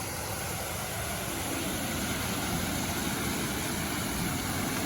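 Steady roar of rushing water from a waterfall and river, growing a little louder about two seconds in.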